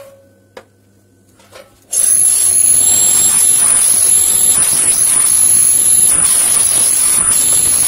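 Electric drill boring through the sheet-metal stovetop with a metal drill bit, water-lubricated. After a few light clicks, it starts about two seconds in and runs steadily with a high whine.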